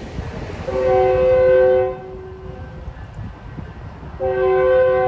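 Metrolink commuter train's horn sounding for a grade crossing: two loud blasts of a multi-tone chord, the first about a second long, the second starting about four seconds in and still sounding.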